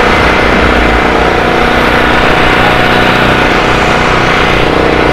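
Small gasoline engine of a portable generator running steadily at constant speed, with an even engine hum.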